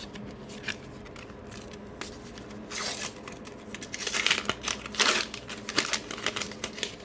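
A sticker packet being torn open and its wrapper crinkled, with the stickers handled: a quick run of crackles and clicks that starts a couple of seconds in and is busiest in the middle.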